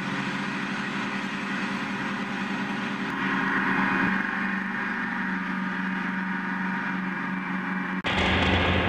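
New Holland 396 tub grinder running while round hay bales are loaded into its tub: a steady mechanical drone with a constant hum. It shifts abruptly about four seconds in and again near the end.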